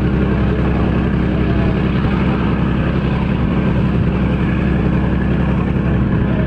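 A passenger ship's engines running steadily under way, giving a constant low drone and hum with an even rushing noise over it.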